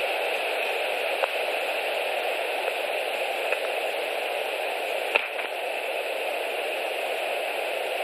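Steady static-like hiss on a nest camera's audio feed, with a few faint clicks about a second, three and a half seconds and five seconds in.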